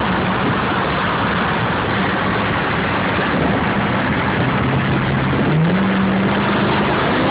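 1989 Camaro IROC-Z28's V8 engine running loudly, its pitch stepping up as the revs rise about five and a half seconds in.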